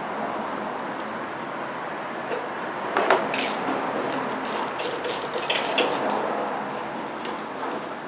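Metal hand tools clinking and rattling in short irregular clicks, during work on a car battery's terminal connections, over a steady background hiss. The clinks cluster about three seconds in and again around five to six seconds.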